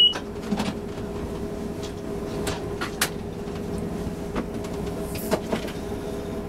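Cab interior sound of a British Rail Class 56 diesel locomotive on the move, its Ruston-Paxman 16-cylinder engine giving a steady drone with a low hum, and a few sharp clicks about two and a half, three and five seconds in.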